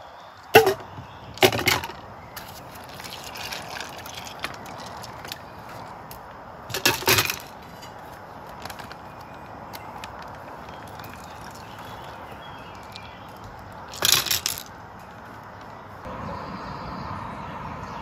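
Ice cubes dropped into a titanium camping mug, clinking sharply twice in the first two seconds. Two more short clattering rattles of ice against the mug come about seven and fourteen seconds in.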